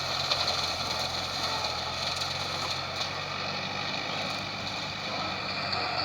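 Valmet 85id tractor's diesel engine running steadily, driving a PTO rotary mower.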